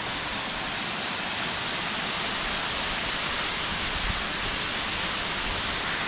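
Steady rush of flowing river water, an even hiss with no breaks.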